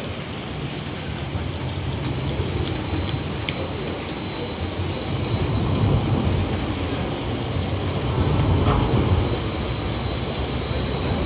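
Steady rain on a wet city square, with the low rumble of a tram passing that swells about halfway through and again near the end. A faint, thin, steady high whine runs underneath.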